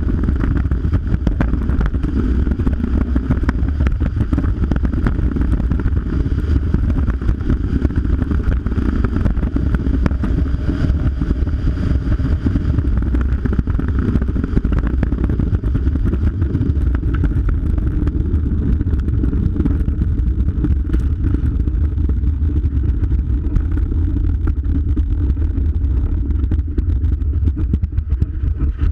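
Luge sled's steel runners sliding at speed down an iced track: a loud, steady rumble with constant fine chatter from the runners and the sled shaking on the ice.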